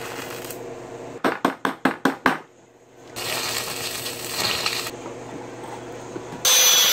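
Electric arc welding steel: a crackling, sizzling hiss for about two seconds in the middle. Before it comes a quick run of about seven sharp metal taps, and near the end a loud, harsh rasping noise starts.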